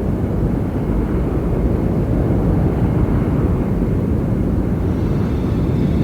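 Boeing 747 jet engines making a steady, deep rumble as the airliner flies.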